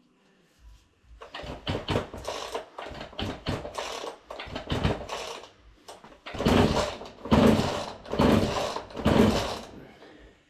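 Recoil starter cord of a Husqvarna 40 two-stroke chainsaw being pulled: a run of shorter, quicker pulls, then four long, loud pulls just under a second apart. The engine does not fire.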